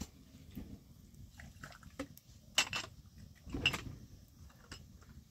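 A few light knocks and clinks, like dishes or utensils being handled, the loudest about two and a half and three and a half seconds in.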